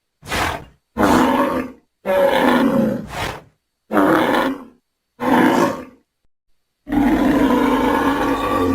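Dinosaur sound effect made up for Zuniceratops: a series of six deep, growling roars with short silences between, the last one held for about two seconds.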